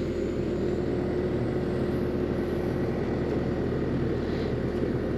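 Excavator's diesel engine running steadily with a constant low drone and a steady hum.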